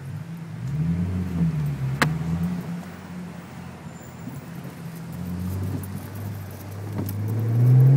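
2010 Ford Mustang's 4.0-litre V6 through a Gibson aftermarket exhaust, accelerating from a stop as heard inside the cabin. The revs climb, ease back about two seconds in with a sharp click, then build again to their loudest near the end.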